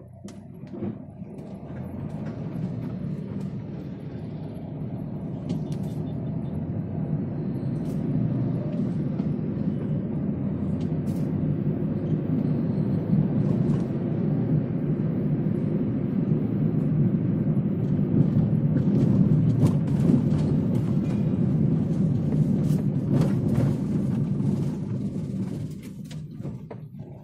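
Car cabin noise while driving: a low, steady rumble of tyres and engine that swells over the first couple of seconds as the car gathers speed and drops away near the end as it slows.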